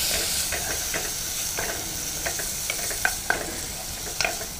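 Ginger-garlic paste, onions, green chillies and curry leaves sizzling in hot oil in a pan, with a spatula clicking and scraping against the pan as it is stirred. The sizzle is loudest at the start and slowly eases off.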